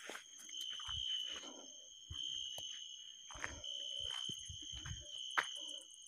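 Crickets trilling a steady high tone that breaks off and starts again every second or so, with scattered soft thumps and knocks of footsteps on a dirt path.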